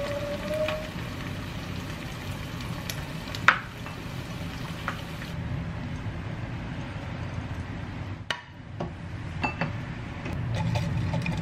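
Egg frying in oil in a nonstick pan, a steady sizzle, with a few clicks of a plastic spatula against the pan and bowl; the loudest is a sharp clack about three and a half seconds in. Background music comes in near the end.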